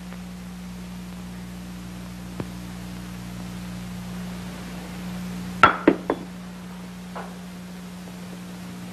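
Three quick, sharp knocks a little past the middle, with a fainter one a second later, over a steady low hum.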